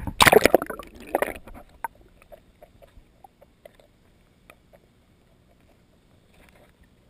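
Water splashing and sloshing around an action camera as it is dipped beside a kayak hull and goes under, for about the first second and a half. Then muffled underwater quiet with scattered faint clicks and pops.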